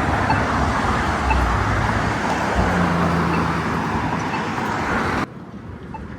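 Road traffic, a steady rush of tyres and engines, with faint regular ticks about once a second from a Polara iNS2 accessible pedestrian push button's locator tone. The traffic sound cuts off abruptly about five seconds in, leaving the quieter ticking.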